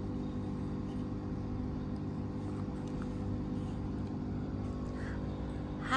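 A steady low mechanical hum, several unchanging low tones over a faint even hiss.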